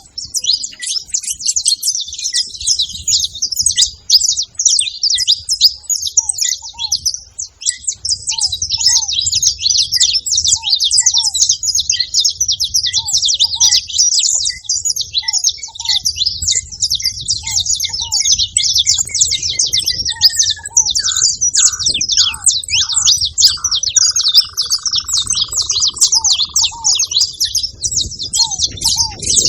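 Saffron finches (canário-da-terra) chirping in a dense, unbroken stream of rapid high-pitched notes. A fainter, lower call repeats at an even pace beneath them, and a lower sliding call joins for a few seconds past the middle.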